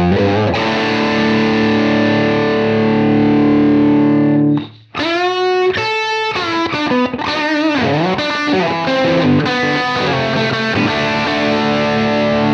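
Electric guitar played through a UAFX Lion '68 Super Lead amp pedal's overdriven Plexi tone, set in a natural-sounding room with the presence raised for extra detail. A held distorted chord rings and cuts off about halfway, then a lead phrase with string bends runs into another held chord.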